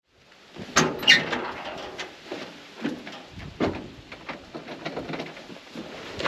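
Knocks, thumps and creaks of someone climbing in through the door of an old Ford Model A pickup's cab, with two sharp clicks about a second in.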